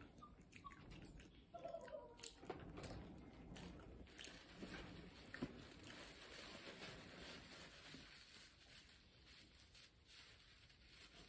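Quiet eating sounds: a sandwich's paper wrapper rustling and small clicks from handling food, with scattered ticks in the first half, one louder tick about five seconds in.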